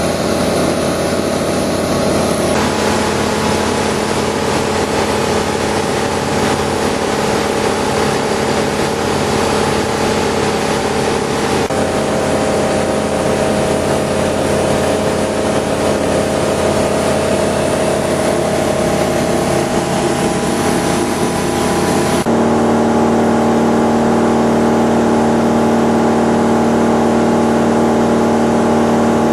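Steady drone of a Flight Design CTSW light aircraft's Rotax 912 four-cylinder engine and propeller in cruise, heard inside the cockpit. Its tone shifts abruptly a few times and is a little louder near the end.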